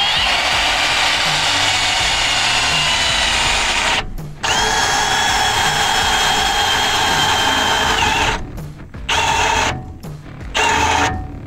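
Milwaukee Fuel cordless drill boring through a corroded metal line to cut it free. The drilling runs with a steady whine, stops briefly about four seconds in, and runs again, then comes in short bursts near the end.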